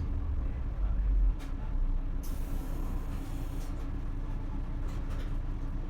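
Isuzu Erga city bus's diesel engine heard from inside the bus, pulling hard in power mode. The deep rumble drops about a second in, and a hiss of air follows for about a second and a half.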